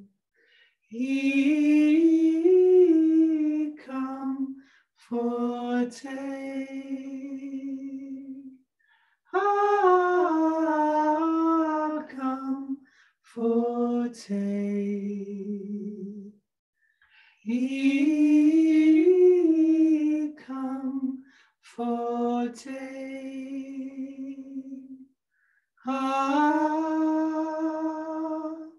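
A woman and a man singing a slow song a cappella in repeating phrases of a few seconds each, with held notes and short pauses for breath between them.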